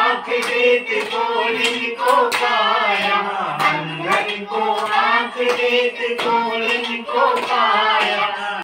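Hindu aarti hymn being sung, several voices together, with hands clapping in time.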